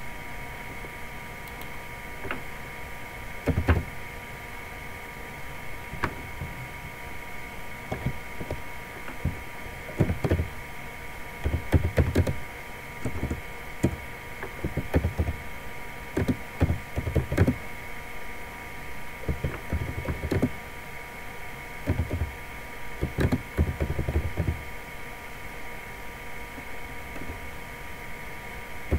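Typing on a computer keyboard: irregular clusters of short, dull key taps with pauses between them, over a steady faint electrical whine.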